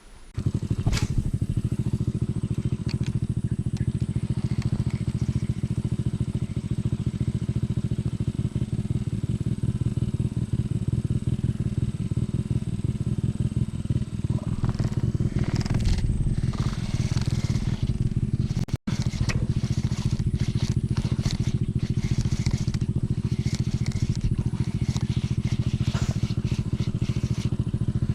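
A small engine running steadily at an even speed, with crackling and scraping noise over it. It starts abruptly about a second in and breaks off for an instant about two-thirds of the way through.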